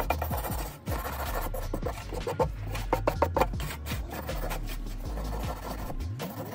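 Stiff hand wire brush scrubbing flaking paint and rust off a cast metal water pump motor housing in quick repeated rasping strokes, with background music.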